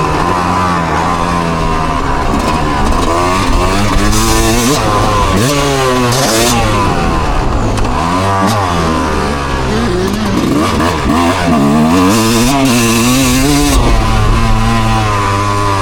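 Loud engine revved up and down again and again over a steady idle, its pitch climbing and dropping every few seconds.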